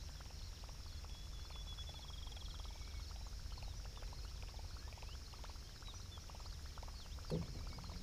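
Outdoor pond ambience: a steady high insect drone with frog and cricket-like chirps, a short high trill about a second in, and a dense rapid ticking.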